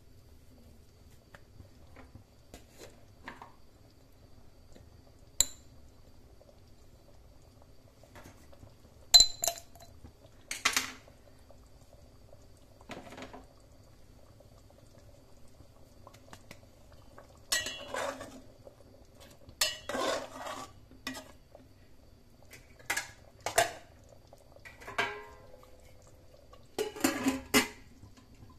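Steel perforated skimmer ladle clinking and scraping against an aluminium cooking pot while stirring a thick curry, in scattered short bursts. The loudest is a sharp clink about nine seconds in, and there is a busier run of clatter in the second half.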